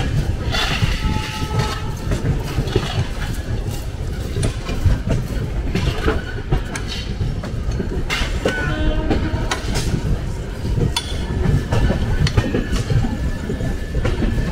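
Train running along the track: a steady low rumble with the clickety-clack of wheels over rail joints and many sharp metallic clicks.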